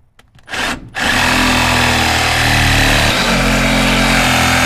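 A handheld cordless power tool starts with a short burst, then runs steadily under load while cutting down the rubber bump stops above the rear axle housing, so the lowered truck's axle no longer rests on them.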